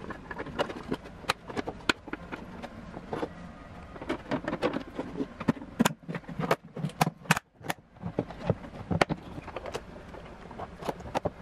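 A BMW E46 headlight assembly being handled and put back together by hand: irregular plastic clicks, taps and knocks as the housing and lens are fitted.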